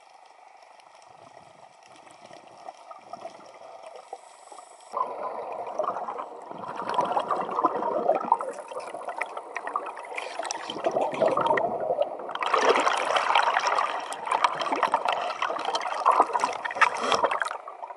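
Scuba exhaust bubbles rushing and crackling past the underwater camera housing. It begins suddenly about five seconds in after faint underwater hiss, eases briefly around twelve seconds, then comes back loud.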